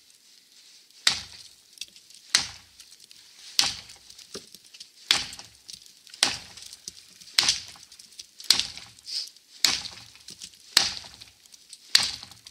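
Wetterlings Bushman axe chopping into a small standing tree to fell it: about ten crisp strikes, one every second and a bit, in a steady rhythm.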